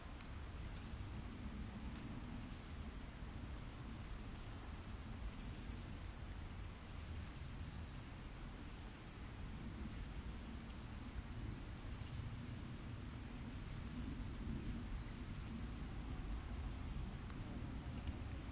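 An insect, cricket-like, trilling high and steady in long bouts of several seconds with short breaks, over a steady low rumble.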